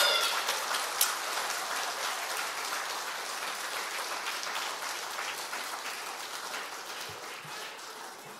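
Congregation applauding, loudest at the start and gradually dying away.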